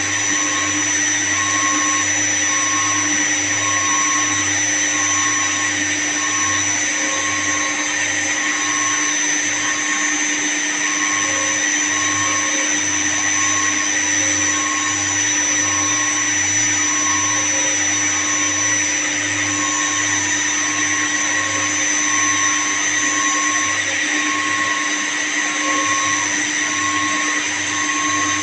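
Steady, loud running of electric-motor-driven machinery, such as the pumps and motors of a chilled water plant room. It holds a constant whine, with a fainter tone pulsing about once a second.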